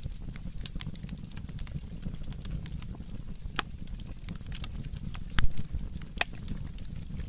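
Burning firewood crackling, with sharp, irregular pops over a steady low rumble from the fire. A louder dull thump comes a little past five seconds in.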